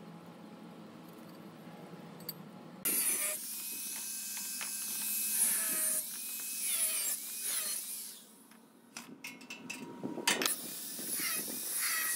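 Handheld angle grinder with a cutting disc starting up about three seconds in and cutting through square steel tube. Its whine falls and recovers in pitch as the disc bites. It pauses briefly about two-thirds of the way through with a few sharp clicks, then cuts again.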